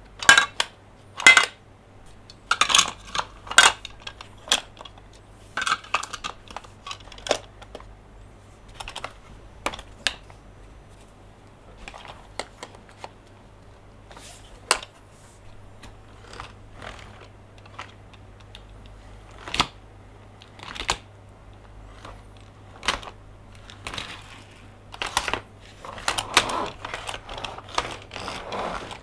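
Close-up irregular clicks, taps and light clattering of hands handling plastic Monster Jam toy trucks, denser about three seconds in and again near the end, sparser in the middle.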